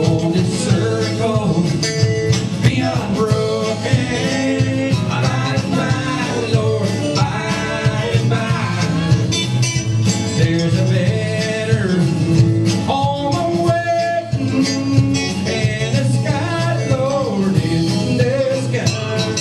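Live band playing a country-style song with drums, electric and acoustic guitars, electric bass and fiddle.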